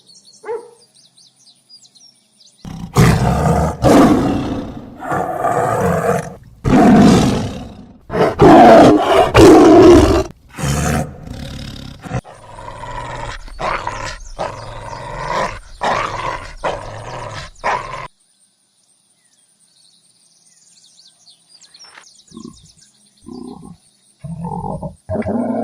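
A big cat roars several times, loud and deep, then gives a run of shorter grunting calls about two a second that stop abruptly. A few faint short sounds follow near the end.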